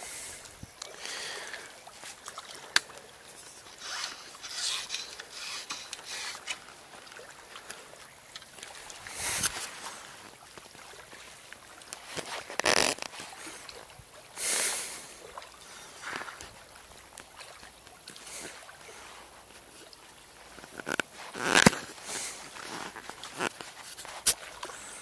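Intermittent short rasping and rustling handling noises, several over the stretch, the loudest about nine, thirteen, fifteen and twenty-two seconds in.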